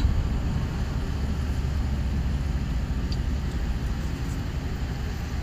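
Steady wind noise: a low rumble with an even hiss over it.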